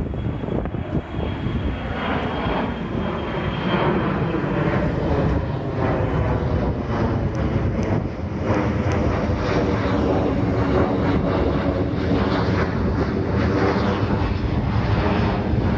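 Aircraft climbing out after takeoff and passing overhead, its engines rumbling loud and steady after building up over the first few seconds.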